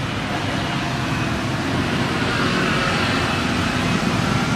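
Steady background noise, an even mix of rumble and hiss with no distinct events.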